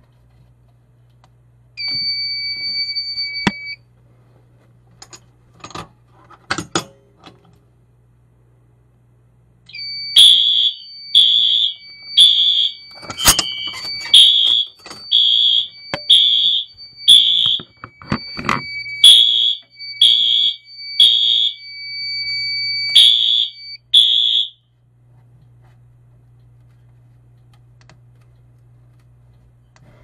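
Fire alarm sounders going off during a pull-station test. A short steady high electronic tone comes about two seconds in, and from about ten seconds a steady high tone with a loud beep about once a second runs for some fifteen seconds before cutting off. Clicks and knocks fall in between.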